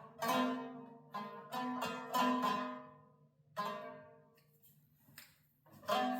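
A plucked string instrument being strummed and picked: several chords ring out and fade in quick succession, then a quieter pause, and one more strum near the end.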